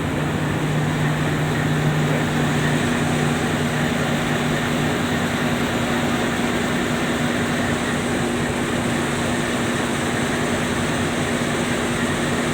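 Steady engine noise of a twin-engine azimuth-drive tugboat under way, with a constant low hum and a second, lower hum that stops about two and a half seconds in.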